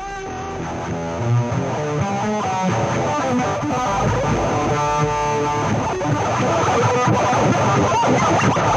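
Instrumental music led by electric guitar: runs of distinct plucked notes that thicken into a dense, layered wash, growing steadily louder.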